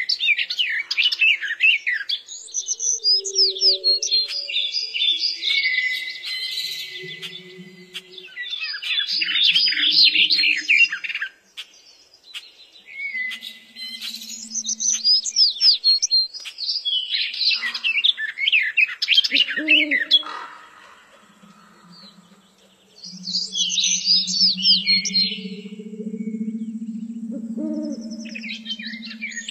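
A flock of gulls calling, with bursts of many short, high, overlapping calls coming and going every few seconds.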